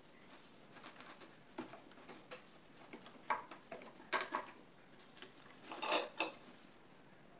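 Light metal clicks and rattles from a cabinet sewing machine's presser foot and needle-plate parts as they are wiped clean with a cloth. The clicks come irregularly, with the loudest cluster about six seconds in.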